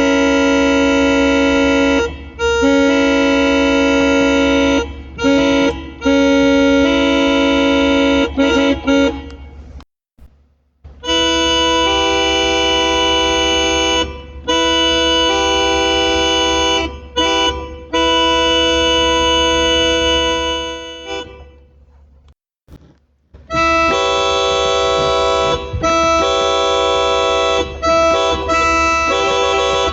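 Yamaha PSR-F51 portable keyboard playing held multi-note chords that imitate locomotive air horns. The chords come as long blasts in three stretches of about ten seconds each, with short pauses between them and brief breaks within each stretch.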